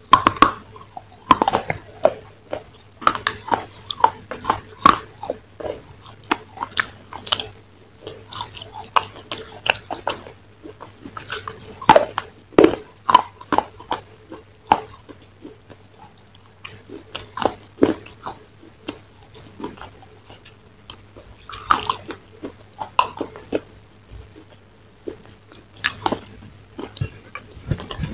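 Close-miked chewing and biting of fried chicken: irregular wet mouth smacks and clicks, several a second.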